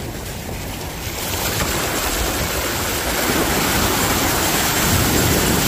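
Small waves breaking and washing up onto a sandy shore: a steady rushing of surf.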